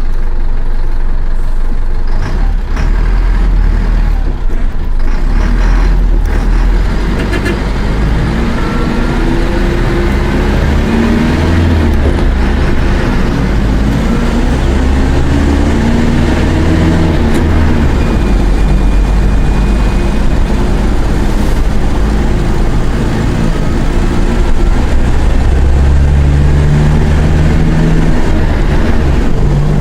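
Mercedes-Benz OF-1418 bus's diesel engine running under load while driven, its pitch climbing and dropping repeatedly as it accelerates and shifts through the five-speed gearbox. A few short clicks come in the first several seconds.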